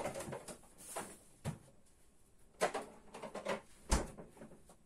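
Kitchen refrigerator being used: several short knocks and clicks as things in it are handled, then a louder thump about four seconds in as the door is shut.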